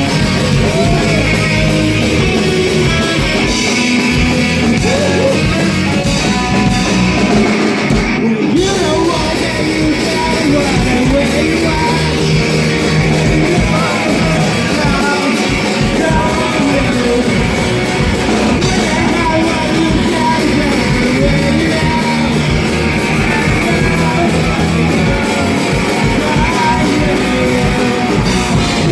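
Rock song playing, with a sung lead vocal over guitar and a drum kit; the music briefly drops out for a moment about eight seconds in.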